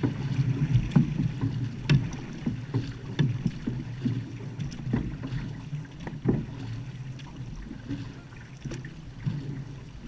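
Outrigger canoe under way: paddles dipping and splashing in the water at irregular intervals, over a steady low rumble of water and wind on the microphone.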